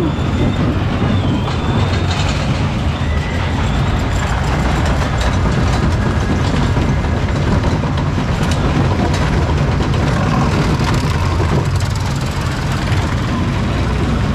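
Small family roller coaster train rolling around its track, heard from on board: a steady, loud rumble of the wheels on the rails with light clattering.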